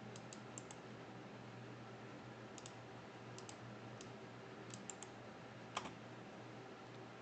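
Computer mouse clicking: about a dozen light, faint clicks, several in quick pairs, with one louder click near the end. A faint steady hum runs underneath.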